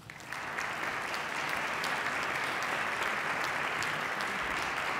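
Audience applauding steadily, starting right away and holding through.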